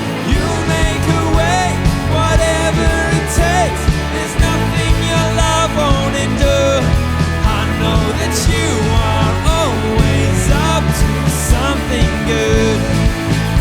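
Worship band playing an instrumental passage: drums and bass under a wavering, bending lead melody.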